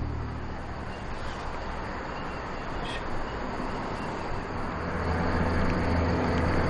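Steady low hum with an even hiss of outdoor background noise, with a faint click about three seconds in. It grows a little louder near the end.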